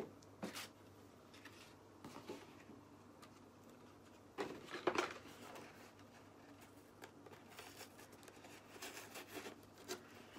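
Faint handling noises: soft rustling with a few light knocks, loudest about halfway through.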